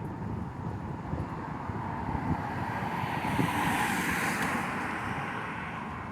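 Wind buffeting the microphone with a steady low rumble, while a rushing sound swells to a peak about four seconds in and fades away.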